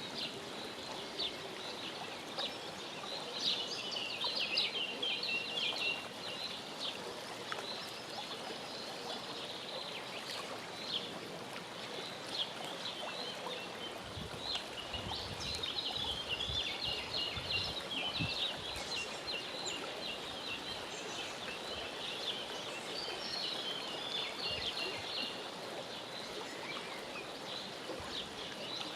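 Mallard ducklings peeping in rapid clusters of short, high-pitched chirps, over a steady outdoor hiss.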